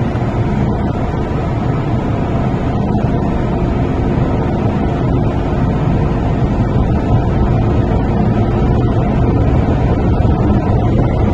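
Steady rumble of an MTR M-Train running through a tunnel, heard from inside the car, growing slowly louder.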